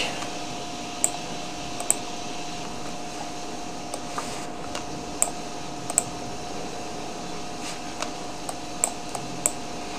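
Scattered single clicks from a computer mouse and keyboard, about eight of them, over a steady hiss with a faint constant hum.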